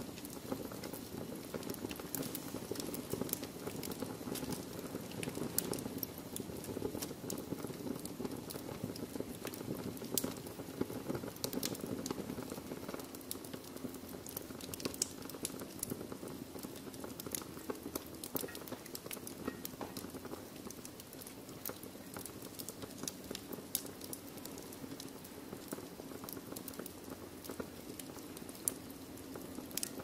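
Wood fire in a fireplace crackling, with many irregular sharp pops and snaps over a low, steady rush of the burning logs.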